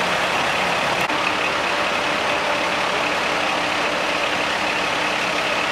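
Heavy engine idling steadily under a constant hiss. About a second in there is a click, and the hum shifts to a higher pitch.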